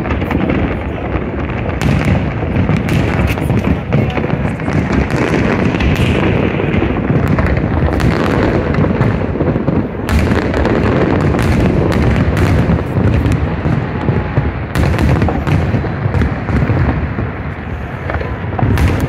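Fireworks display: aerial shells bursting in a dense, continuous run of bangs and crackles, one close on another with no pause.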